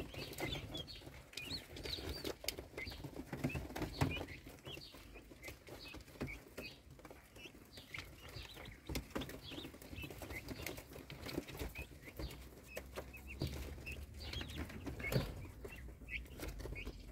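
Ten-day-old turkey poults peeping, many short high calls overlapping, with scattered sharp clicks as they peck at the greens and feed trays.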